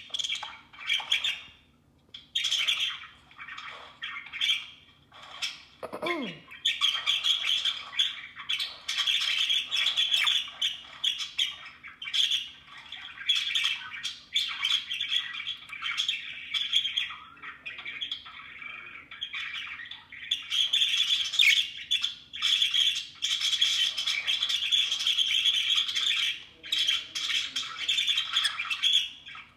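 Budgerigars chattering and squawking in rapid, continuous warbling bursts.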